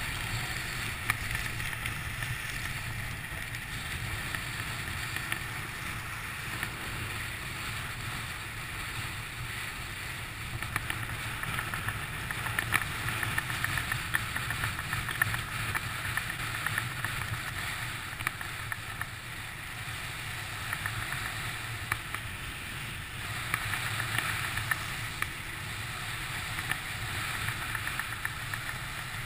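Alpine skis sliding and scraping over groomed snow on a downhill run: a steady hiss that grows louder in stretches, over a low rumble.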